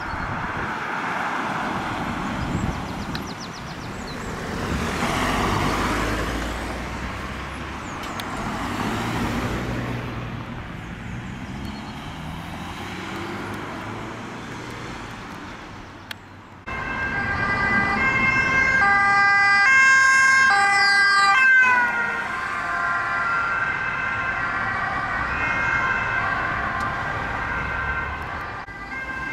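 Road traffic passing, a swelling rush of tyres and engines with no clear siren. About halfway through, a sudden cut brings in an ambulance's two-tone siren alternating between a high and a low note, the loudest sound here, dipping in pitch briefly once.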